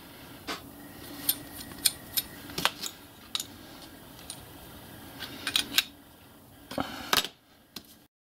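Irregular metallic clinks and taps, about a dozen sharp ones in loose groups, as small steel burner tubes and a brass gas manifold are handled and fitted together. Steel spanners are worked on the fittings and set down on the bench.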